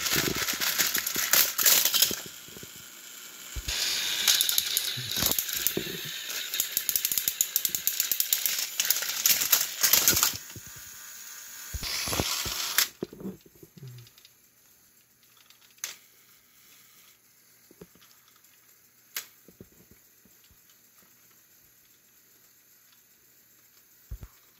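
Battery-powered toy train engines running on plastic track: a dense, high-pitched whirr of small motors and gears with rattling wheel clatter. It stops about 13 seconds in, leaving near quiet with a few faint clicks.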